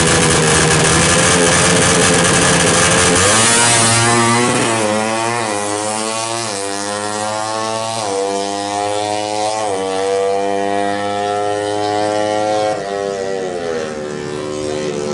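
Suzuki Satria FU drag bike's 150 cc single-cylinder four-stroke engine, with a PWK 38 carburettor and DOS muffler exhaust, held at steady high revs and then launched. It climbs through the gears, its pitch rising and dropping at each of about five shifts, and fades as it pulls away. Near the end the throttle comes off and the pitch falls away.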